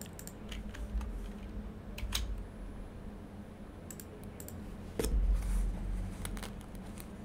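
Scattered sharp clicks of a computer mouse and keyboard, some singly and some in quick pairs, with a dull low thump about five seconds in that is the loudest sound.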